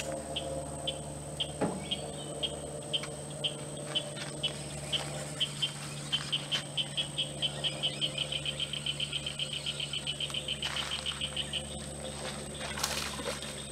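A frog calling: a run of short, sharp clicks, about two a second at first, that speeds up into a fast rattle of about ten a second and stops shortly before the end.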